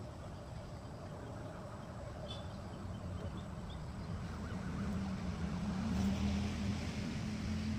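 Steady low engine hum of a motor vehicle, swelling louder about five seconds in.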